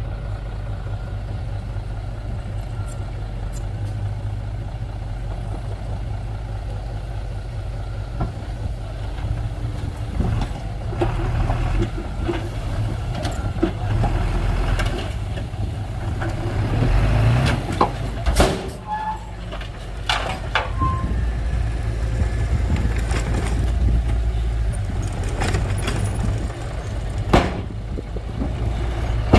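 Heavy diesel engine of construction machinery running steadily, with scattered metallic clanks and knocks in the middle and later part.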